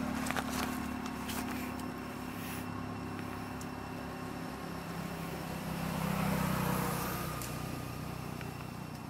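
A motor vehicle's engine running steadily at a distance, shifting in pitch and growing louder around six seconds in, then fading as it passes.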